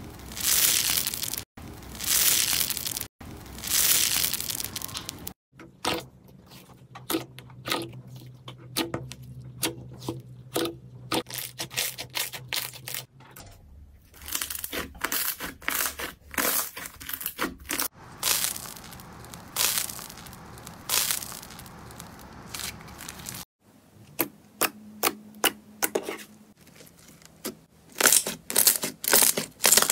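Slime squeezed and pressed by hand: runs of sticky crackles and pops as air pockets burst. There are three loud squishes at the start and a quick run of sharp, loud pops near the end.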